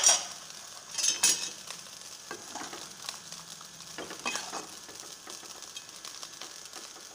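Thick chicken-and-potato curry sizzling in a karahi while a spatula stirs it. There are a few louder strokes of the spatula through the gravy: one about a second in, more at about two and a half seconds, and another about four seconds in.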